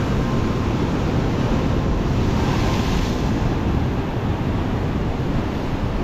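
Stormy sea surf: heavy waves breaking and washing against the shore, with a louder surge about halfway through, and wind buffeting the microphone.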